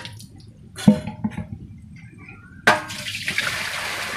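A sharp knock about a second in, then water pouring, a steady splashing rush that starts suddenly a little before three seconds in.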